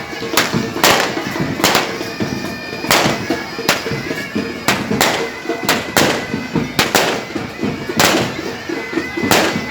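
Sharp bangs of fireworks going off roughly once a second, over loud wind-band music held on a steady drone.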